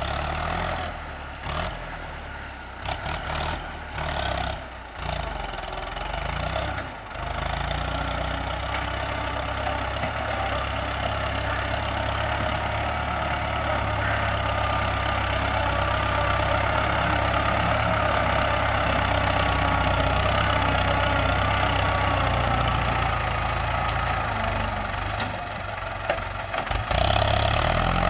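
Ford 6610 tractor's four-cylinder diesel engine running steadily under load while pulling a disc plough through dry soil. The level is uneven for the first several seconds, then the engine grows louder and stays steady.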